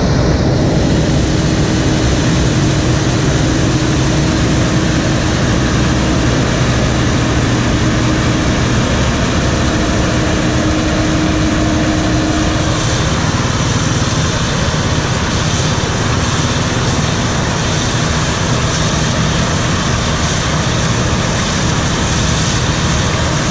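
Combine harvester running steadily at work, a loud unbroken machine noise with a deep rumble and a steady hum that fades out about twelve seconds in.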